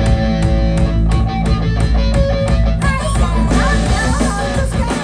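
A rock band playing live and loud: a driving drum beat under electric guitars.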